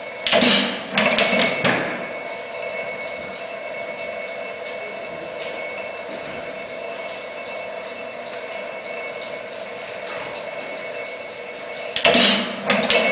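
Hydrogen-fuelled 3/4-scale replica Otto & Langen free-piston atmospheric gas engine running. It has a burst of loud knocks and clatter in its firing cycle at the start, and another about twelve seconds later near the end. Between them the gearing and flywheels whir steadily while the engine coasts.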